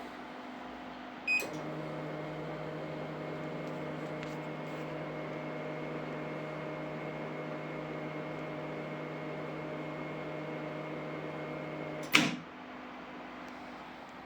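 Repaired 2000-watt power supply and Siemens Micro board under test: a click with a short beep, then a steady electrical hum with a faint high whine for about ten seconds. The hum ends in a loud sharp snap, and a second snap follows about two seconds later.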